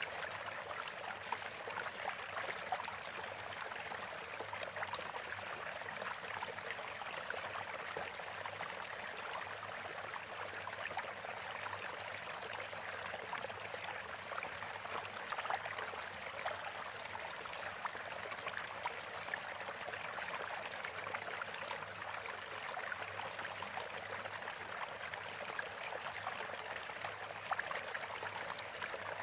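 Steady running water, like a trickling stream.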